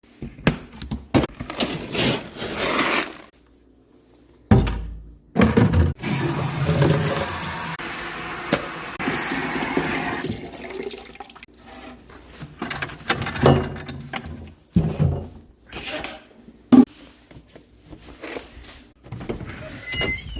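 Scattered knocks and handling noises, with about four seconds of steady pouring noise starting about six seconds in, as feed or water is poured out for rabbits.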